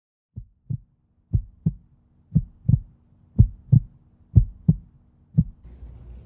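Heartbeat sound effect: slow double thumps, lub-dub, about once a second, five pairs and a last single beat, growing louder over the first few beats. A faint low steady hum runs under them from about a second in.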